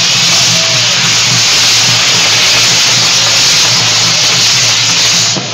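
A castillo firework tower burning, its fountains of sparks giving off a loud, steady, rushing hiss.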